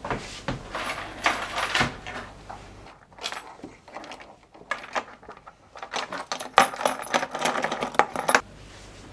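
A busy run of sharp clicks and clattering knocks, as of small hard objects being handled. It thins out about three seconds in, picks up again, and stops abruptly near the end.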